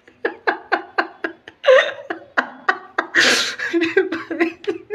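A man laughing in quick repeated bursts, about four or five a second, with a loud breathy gasp about three seconds in.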